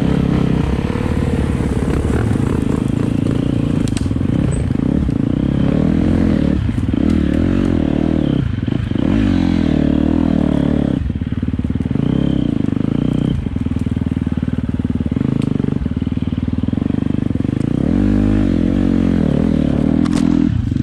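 Four-stroke single-cylinder enduro motorcycle engine on the move, its pitch rising and falling as the throttle is worked on a slow, leaf-covered forest trail.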